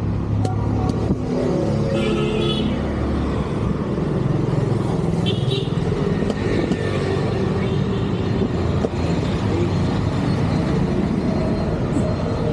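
Road traffic: cars and motorcycles running past on a busy street, a steady engine and tyre noise throughout.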